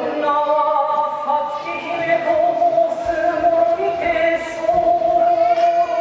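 Kagura chant: voices singing long, drawn-out held notes at a nearly steady pitch.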